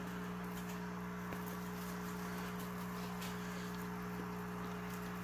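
Steady low hum with a few faint ticks.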